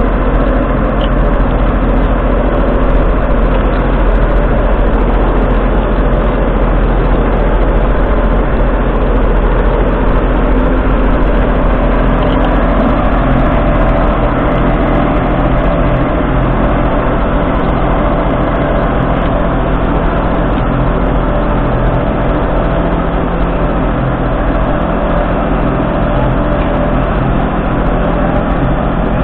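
McCormick X7.680 tractor's 6.7-litre six-cylinder diesel engine running at a steady, even speed close by.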